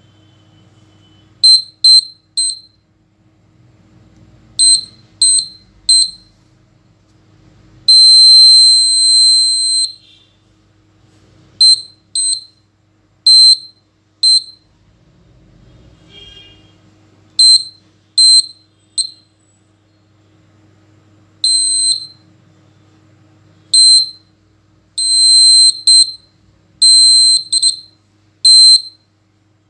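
Buzzer of a laser security alarm circuit sounding a high-pitched beep each time the laser beam is broken. The beeps are short, mostly in twos and threes at irregular gaps, with one longer tone of about two seconds about eight seconds in.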